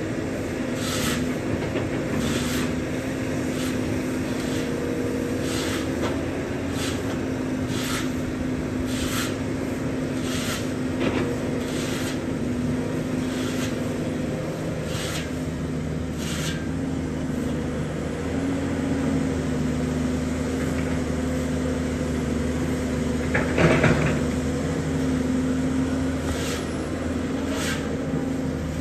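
Caterpillar 320D hydraulic excavator's diesel engine running steadily under digging load, its pitch wavering slightly as it works. Over it, short scraping strokes about once a second, brooms sweeping the paved road, and one louder knock about three-quarters of the way through.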